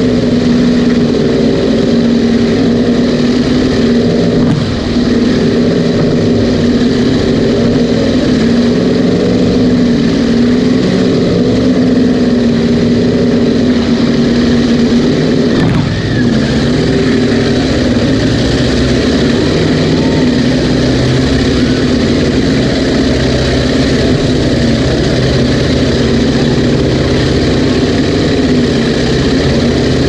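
The twin supercharged GM 598-cubic-inch big-block V8s of a 1998 Cigarette Racing Top Gun 38 offshore powerboat, running loud and steady at an even pitch with no revving.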